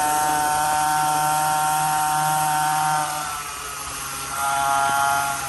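49cc dirt bike engine running at high revs. It eases off about three seconds in, revs back up about a second later, then eases off again near the end. The engine is newly installed and being broken in.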